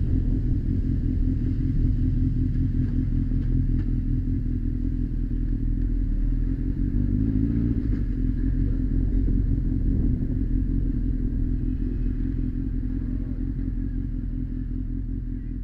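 Honda X4 motorcycle's four-cylinder engine running at low riding speed, with a small change in pitch about halfway through. It grows quieter near the end.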